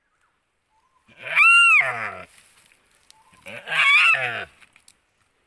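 A Timor deer crying out in distress twice while a Komodo dragon eats it alive: two loud bleats about two seconds apart, each about a second long, arching up and then sliding down in pitch.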